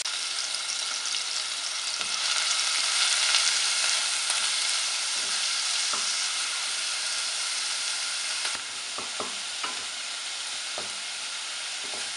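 Grated onion sizzling in hot oil, with a wooden spatula stirring and knocking against the pan now and then. The sizzle is loudest a few seconds in and eases a little past the middle, when the knocks come more often.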